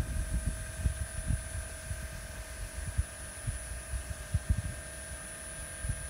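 Faint steady electric whine from a 1/14-scale RC hydraulic mining dump truck standing at idle, over an uneven low rumble of wind on the microphone.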